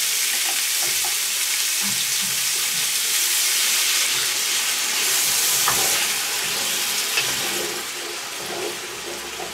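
Broth poured into a hot cast-iron Dutch oven of frying tomatoes and tomato paste: a steady pouring splash and sizzling hiss that dies down about eight seconds in. The liquid deglazes the pot so the tomato paste does not catch.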